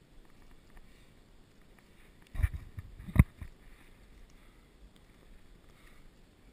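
Gear being handled against a plastic kayak hull: a quick cluster of knocks and bumps, then one sharp knock, the loudest, just after three seconds in.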